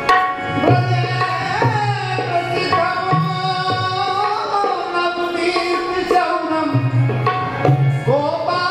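Indian devotional music: tabla drumming under a sung melody of long held notes that glide up and down.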